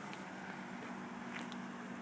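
Steady outdoor background noise with a low, even hum, broken by a few faint ticks.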